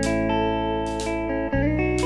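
Live band playing an instrumental passage of a psychedelic soul song: electric guitar over held low notes, with a drum hit at the start and another near the end.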